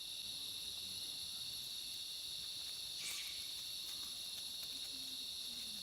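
Steady shrill chorus of insects in the forest: a high drone in several bands, with a brief louder swell about three seconds in.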